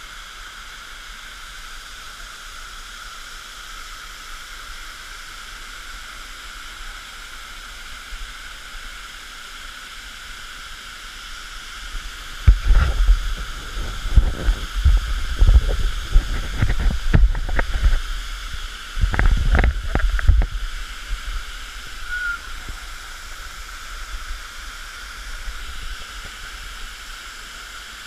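Steady hiss of a waterfall falling close by. About twelve seconds in, a run of loud, irregular bumps and sloshing right at the microphone lasts some eight seconds, then the even rush of falling water carries on alone.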